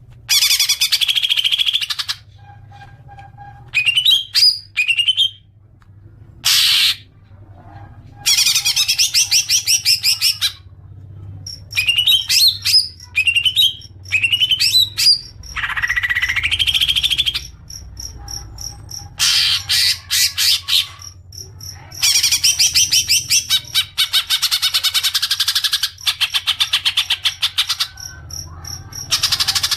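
Cucak ijo (leafbird) song in loud phrases with short pauses between them: quick sweeping whistled notes and bursts of rapid chattering trills. In the second half the chatter runs longer and faster, the long 'ngekek'. A faint low hum sits underneath.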